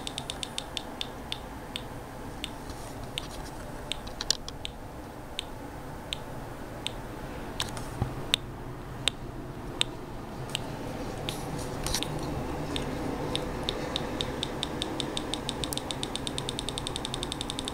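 Small loudspeaker clicking once for each pulse of a reverse joule thief oscillator (2N3055 transistor with a few turns of wire on a neon sign transformer core) running off 3 volts: the circuit oscillating very slowly. The clicks are evenly spaced, about a couple a second through the middle, speeding up to several a second near the end.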